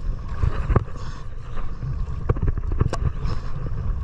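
A small fishing boat under way at sea: a steady low rumble of engine, water and wind. Several sharp knocks and clicks come from gear being handled close by, the loudest about three seconds in.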